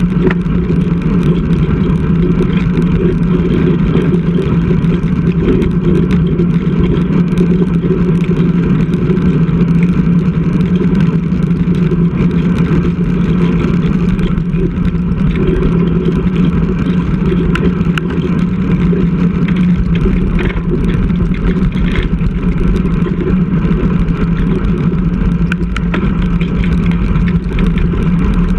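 Steady, loud wind rumble over the microphone of a bike-mounted GoPro on a road bike being ridden.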